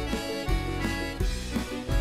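Instrumental break of a Russian estrada song between sung verses: an accordion-led band with bass and a steady drum beat, with no singing.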